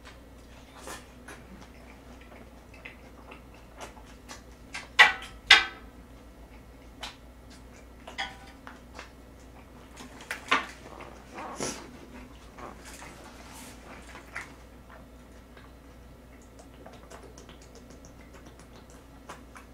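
Close-miked eating sounds: chewing, slurping and lip smacks, with chopsticks clicking against bowls. The loudest are two sharp mouth sounds about five seconds in.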